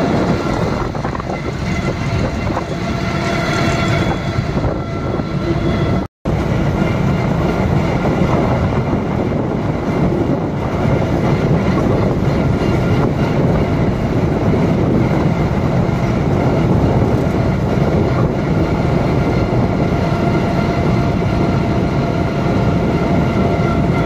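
Combine harvester's diesel engine and machinery running loudly and steadily as the machine drives along a road. The sound cuts out for a moment about six seconds in.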